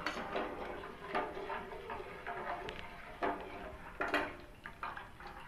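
A spoon stirring in a cooking pot, knocking lightly against its sides a few times at uneven intervals, the clearest about a second in and again around three and four seconds in.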